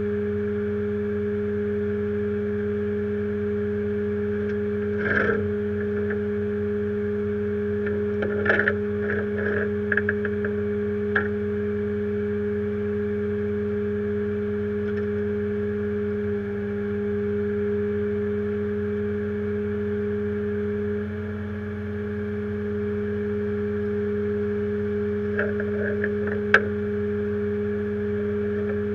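A rollback tow truck's engine running steadily at an unchanging speed, with a few short clanks and knocks now and then.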